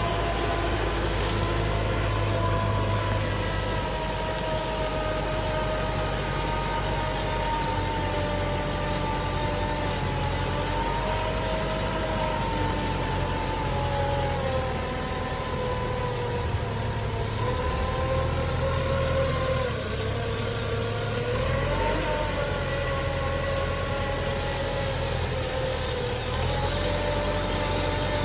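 Kubota tractor's diesel engine running steadily under load as it pulls a disc plough through dry soil, its pitch sagging slightly and recovering in the middle.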